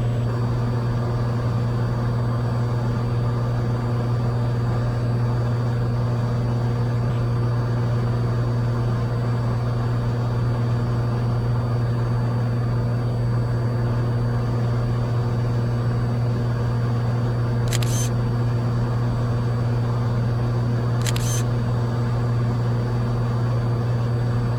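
Cessna 182 Skylane's piston engine and propeller droning steadily in level cruise, as heard in the cabin. Two brief high crackles about three seconds apart near the end.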